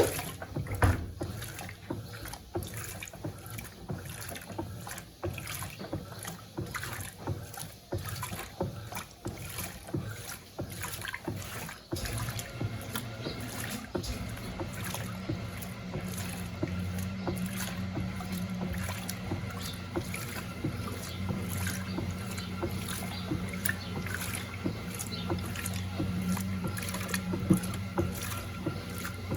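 Electrolux LTC07 top-loading washing machine agitating a load of towels in water: irregular sloshing and knocking, joined about twelve seconds in by a steady low motor hum.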